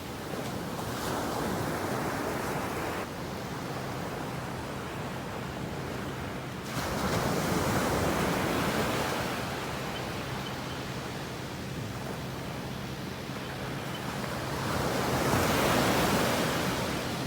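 Ocean surf on a beach: a steady rush of breaking waves that swells louder twice, about eight seconds apart.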